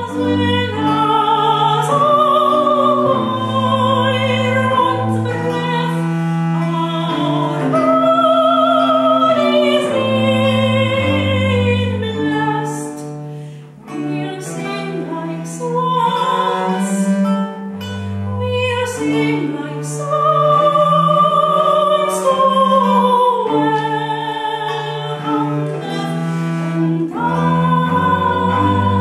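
A soprano singing an early seventeenth-century English lute song with vibrato, accompanied by a bowed viola da gamba and a plucked lute. The voice pauses briefly a little before halfway.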